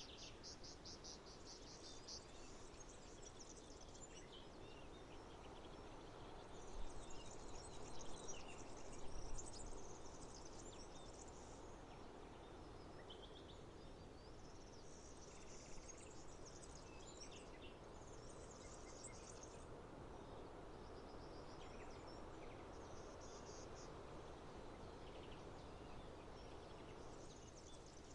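Faint outdoor park ambience: a steady hum of background noise with bursts of high chirping from birds and insects, and a few low bumps about seven to ten seconds in.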